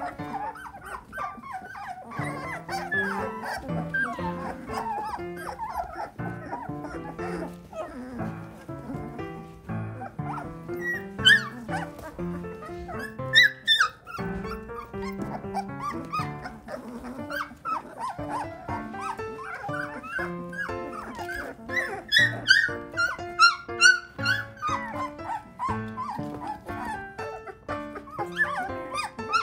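A litter of very young Belgian Malinois puppies crying and whining, with sharper high yelps about a third of the way in and again near the end, over background music.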